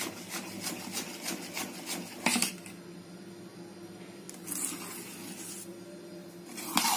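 Thick idli batter of ground rice, urad dal and poha being mixed by hand in a steel bowl: quick, even rubbing strokes for the first two seconds or so, then slower, quieter stirring with a few louder strokes, one near the end.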